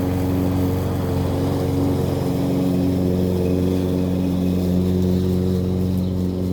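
Toro lawn mower engine running steadily under mowing load, a constant hum.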